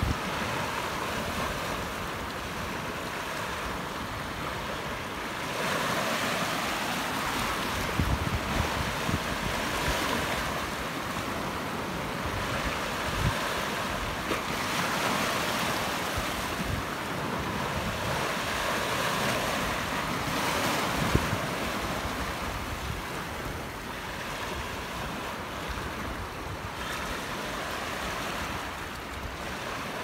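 Small sea waves washing over a flat rock shelf, the surf swelling and easing every few seconds, with low rumbles of wind on the microphone.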